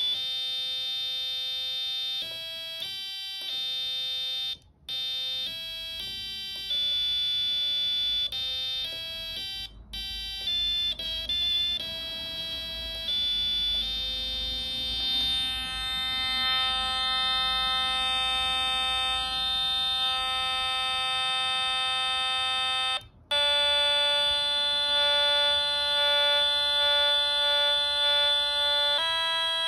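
555 timer IC electronic piano kit playing buzzy single notes through its small 4 cm speaker, one pitch at a time. Short notes step up and down, with a quick run of notes about ten seconds in, then two long held notes with a brief break between them.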